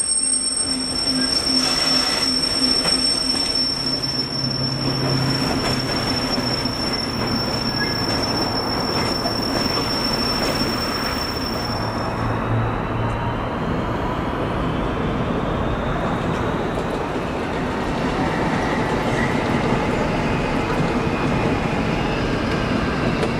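Freight train of open gondola wagons rolling past, pulled by a locomotive. The wheels squeal with steady high-pitched tones until about halfway through, then the wagons go on with a continuous rumble and clatter.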